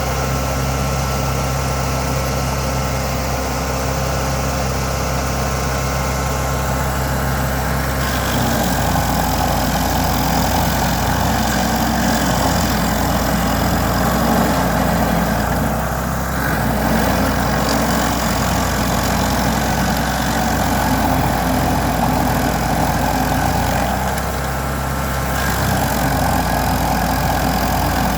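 Vermeer SC382 stump grinder's 37 hp engine running steadily; about 8 seconds in the sound gets a little louder and starts to waver and pulse, as under load from the cutter wheel working the stump, easing off briefly twice.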